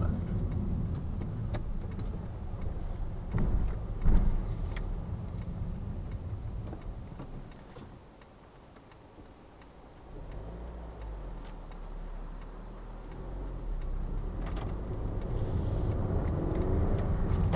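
Car engine and road noise heard from inside the car as it slows almost to a stop, runs quietly for a couple of seconds about halfway through, then pulls away and speeds up, with a couple of sharp knocks a few seconds in.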